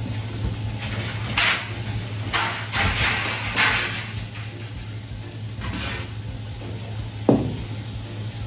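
A fish being cleaned under a running tap on a cutting board: several hissy bursts of splashing and scraping over a steady low hum, and one sharp knock about seven seconds in as the knife is set down on the plastic board.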